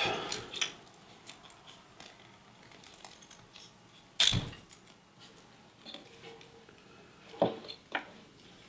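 Tape being unwrapped from a switch's wiring leads: faint crackling and small handling clicks, with a sharp knock about four seconds in and two more clicks near the end.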